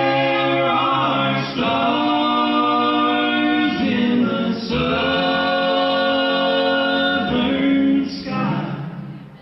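Male a cappella vocal group singing sustained close-harmony chords with no beatboxing, the voices moving together from chord to chord every second or two. The singing fades away near the end.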